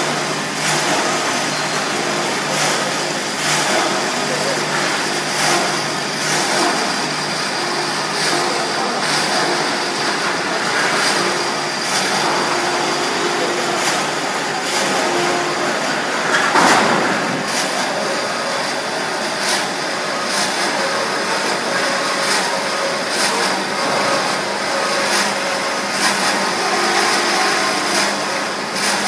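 Vertical band saw for cutting tube bundles running: a steady mechanical hum and whir with scattered clicks, and a brief louder swell a little past the middle.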